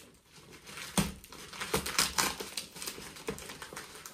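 Scissors snipping through brown paper wrapping on a cardboard box, with the paper crinkling and rustling and a few sharp snips, the loudest about a second in.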